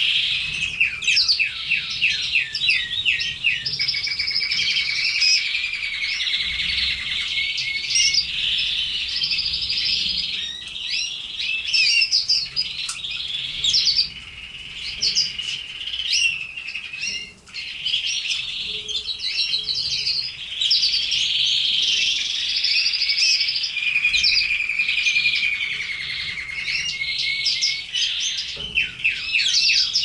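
Red canaries singing a long song of fast trills and rapid repeated notes, with a few brief breaks.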